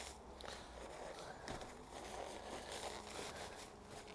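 Faint rustling and crinkling of cling film and butcher's paper as a wrapped smoked brisket is unwrapped by hand.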